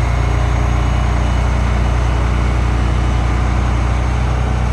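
A large engine idling steadily with a constant low rumble.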